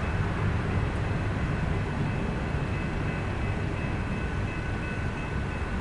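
BNSF freight train rolling by with a steady low rumble and a few thin high tones held over it, the whole sound slowly easing off.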